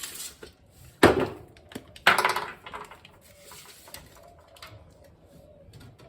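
A sharp knock about a second in, then a short scraping rustle about two seconds in, followed by a few faint knocks.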